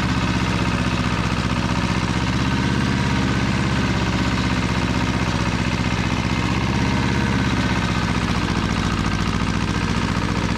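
Pasquali 425 compact tractor's two-cylinder engine running steadily.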